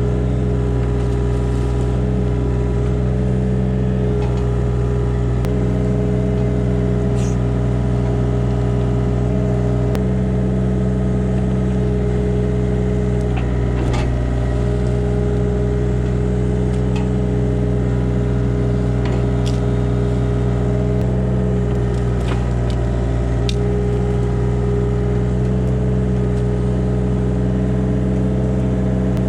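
Hitachi 35U mini excavator's diesel engine running steadily at constant speed, with a few light clicks and clanks.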